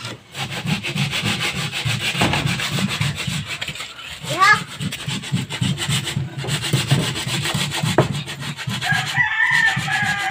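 Hand-held sandpaper rubbed in quick back-and-forth strokes over the epoxy-coated plywood of a wooden boat hull, sanding down epoxy that was laid on too thick. A rooster crows near the end.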